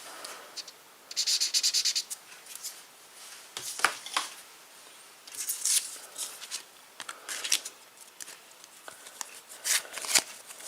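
A pen scratching rapidly for about a second, marking a card off a collection checklist, followed by scattered rustles and light clicks of trading cards and foil packets being handled.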